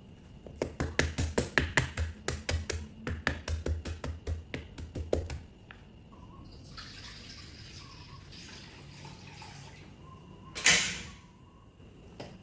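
A knife chopping quickly on a cutting board, about five sharp strikes a second, stopping after about five seconds. Then a few seconds of steady hiss like running or pouring water, and a short, loud burst of noise near the end.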